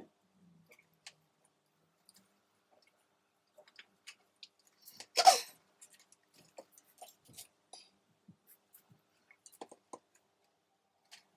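Close handling noises from hands at work on a plant-mounting project: scattered soft clicks and taps, with one louder rustle or scrape about five seconds in.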